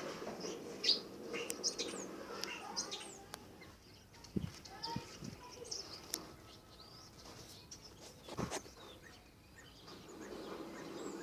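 Small birds chirping in short, scattered calls, with a few soft thumps.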